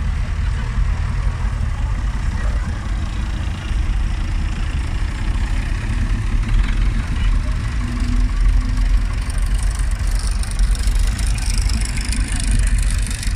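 Vintage tractor engines running at low speed as the tractors drive slowly past close by: a steady low rumble. A higher hiss joins about ten seconds in.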